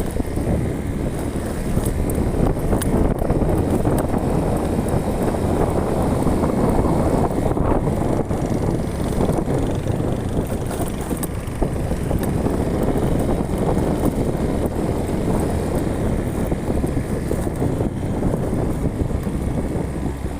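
Car driving along a road: steady engine and road noise.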